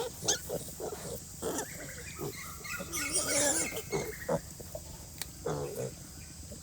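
A sow and her piglets grunting in short, irregular bursts, with a longer, higher call about three seconds in.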